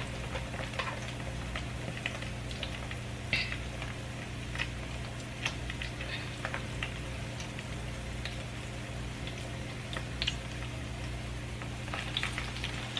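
Salmon croquettes frying in hot oil in a skillet: a steady sizzle with scattered small pops and crackles, over a low steady hum. The sizzle picks up a little near the end as another patty is lowered into the oil.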